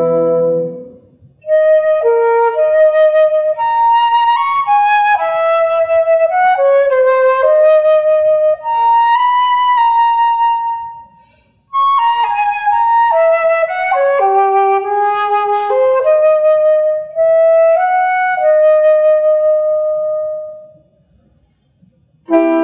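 Solo flute playing a melody in two phrases with a short breath between them. A held chord from the full woodwind quintet dies away at the start, and the ensemble comes back in with a chord just at the end.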